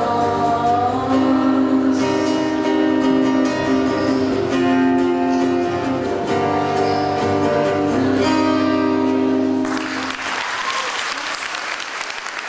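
Acoustic guitar strummed through the last chords of a song, then audience applause breaking out about ten seconds in.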